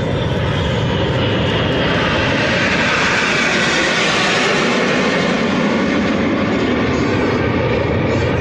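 Aircraft engine noise as a plane flies past, swelling to its loudest about four seconds in and then easing off.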